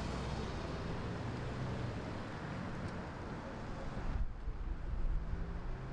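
Street traffic: steady road and tyre noise, changing about four seconds in to a deeper rumble with a low engine hum as a car drives past close by.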